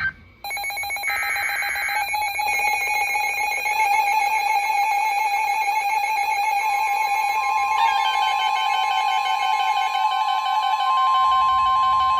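Emergency Alert System attention signal: a harsh, buzzy two-tone alarm held steadily, with a short burst of digital header data over it in the first couple of seconds. A second, pure steady tone, the NOAA Weather Radio alert tone, joins about seven seconds in and grows louder near the end.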